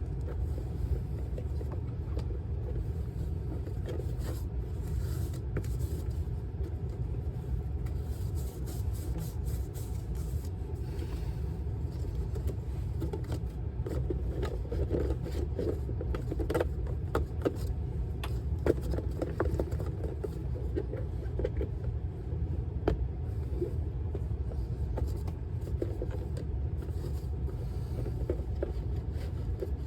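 A steady low rumble, with scattered light clicks and scrapes from the metal roof dryer vent and its damper cap being worked on by hand; the clicks come thickest in the middle of the stretch.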